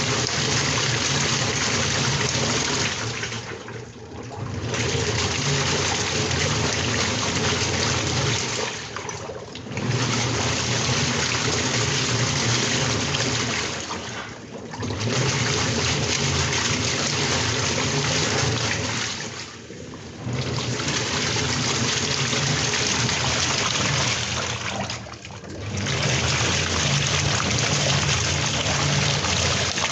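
Water rushing and sloshing at a steady level, broken by brief dips about every five seconds.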